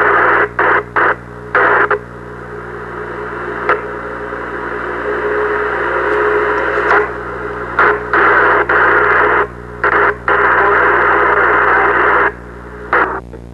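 Radio static: a loud hiss squeezed into the middle of the range that cuts out and back in abruptly again and again, the way a receiver's squelch opens and closes. Through the middle it drops quieter and slowly swells back up, over a steady low hum.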